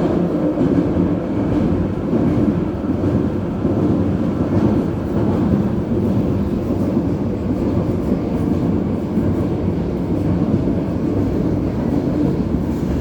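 Vienna U-Bahn metro train running, heard from inside the car: a steady low rumble of wheels on the rails and running gear.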